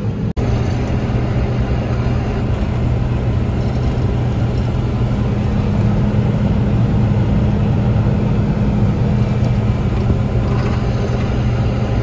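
John Deere combine running steadily while harvesting wheat, heard from inside the cab as a loud, even engine and machinery drone with a low hum. The sound breaks off for an instant about a third of a second in.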